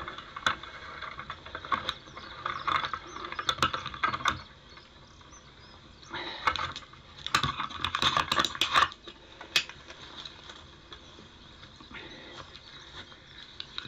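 Irregular bursts of close rustling and clicking in several clusters, with quieter stretches between them.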